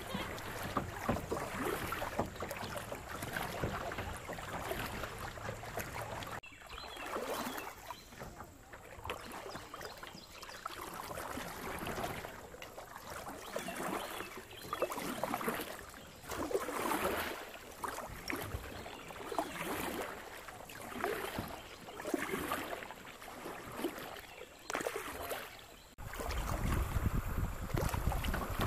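Kayak paddle strokes in creek water, a regular splashing swish about every two seconds, over the rush of moving water. Near the end the sound jumps suddenly to a louder rushing with a low rumble.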